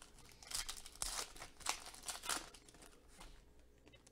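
Foil wrapper of a football trading-card pack crinkling and tearing as it is ripped open by hand, in several short bursts.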